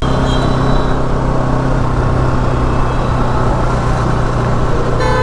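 Motor vehicle engine running steadily amid road traffic noise, with a horn beginning to sound right at the end.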